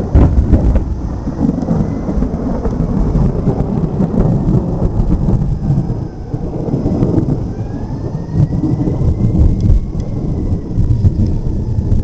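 Thunderstorm: rolling thunder rumbling continuously, swelling and easing, with rain falling.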